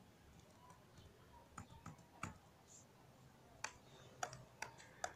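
Faint, irregular clicking from a computer's mouse and keyboard, about seven clicks with more of them in the second half.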